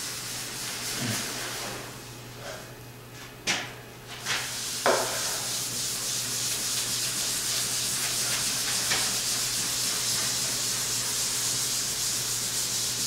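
Red abrasive pad scrubbing Rubio Monocoat oil finish into a walnut slab: a steady scratchy rubbing. It eases off for about two seconds near the start, where two sharp clicks are heard, then picks up again and keeps on steadily.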